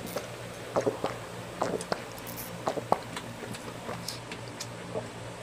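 Close-miked eating sounds: chewing and lip-smacking with irregular short wet clicks, over a steady low hum.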